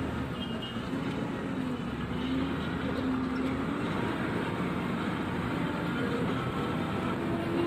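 An engine running steadily, its pitch drifting slightly up and down and rising a little near the end.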